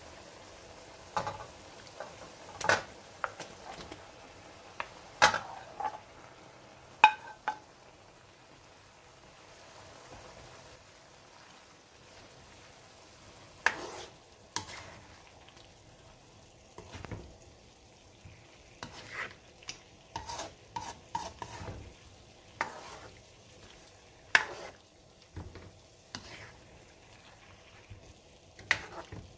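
Spatula stirring and turning squid in a metal wok of simmering sauce: irregular scrapes and knocks against the pan over a faint sizzle.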